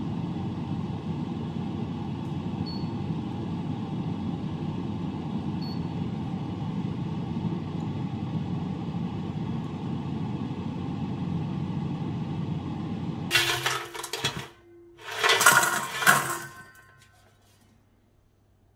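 Gourmia air fryer's fan running steadily in keep-warm mode, with two faint short beeps in the first six seconds. About 13 seconds in the fan stops and the basket drawer is pulled out, with two loud bursts of clattering and clinking.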